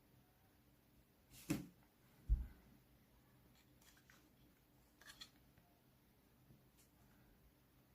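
Small handling sounds: a short brushing knock about one and a half seconds in, then a dull thump just after, followed by a few faint clicks.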